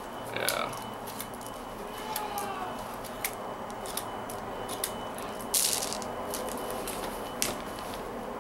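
Plastic kandi pony beads clicking and rattling against one another as string is worked loose to strip beads off a peyote-stitch panel, with a short louder rattle about five and a half seconds in.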